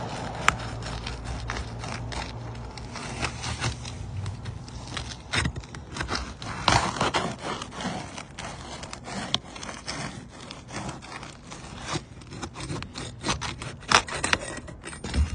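Irregular scraping, rubbing and sharp clicks of hands and shoes working over asphalt roof shingles, loudest about halfway through and again near the end. A low hum from the vehicle before it fades out in the first two seconds.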